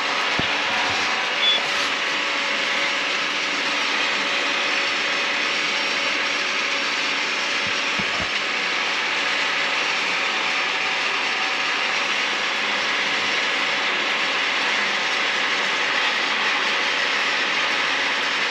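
Round baler running steadily while baling haylage: a continuous mechanical running noise of chains, rollers and gears, with a brief louder knock about one and a half seconds in.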